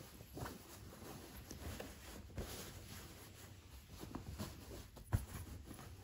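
Cotton fitted sheet rustling and scraping as it is pulled over a mattress corner and tucked under, with scattered small knocks and one sharper thump about five seconds in.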